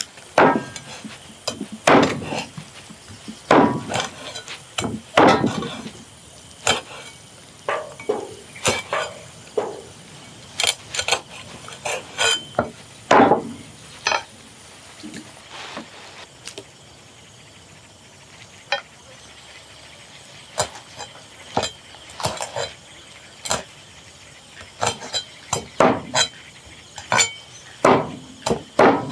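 Irregular knocks, clinks and scrapes of cooking utensils against cookware, a few dozen in all with short pauses between and a quieter stretch a little past halfway.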